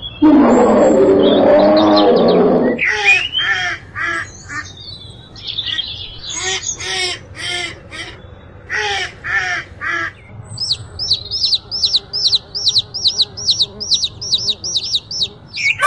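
A black bear growls for about two and a half seconds. Then mallard ducks quack in short runs. Then baby chicks peep steadily, with high falling peeps at about three a second.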